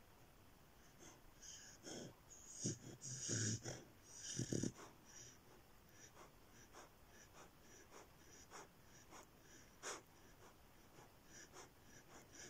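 Beagle puppy's faint, wheezy breathing and snorts as he sleeps and dreams, with a louder cluster of noises about two to five seconds in, then quick, shallow breaths, two to three a second.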